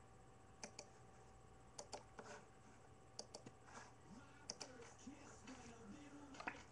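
Faint clicks of computer keys, coming in quick pairs about every second and a half.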